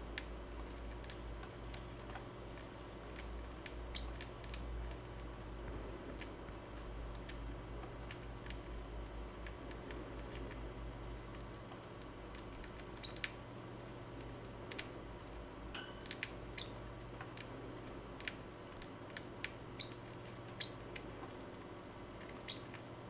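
Parrotlet's beak nibbling a millet cereal flake: scattered faint small clicks and crunches, sharper and further apart in the second half.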